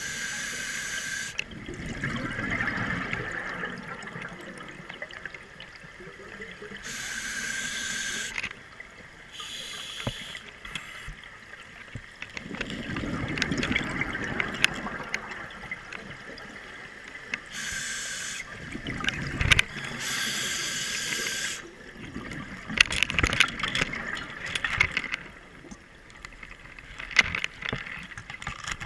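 Scuba diver's regulator breathing underwater: a hissing inhale through the regulator alternating with a gurgling rush of exhaled bubbles, over several breaths. Scattered clicks and knocks come in the last third.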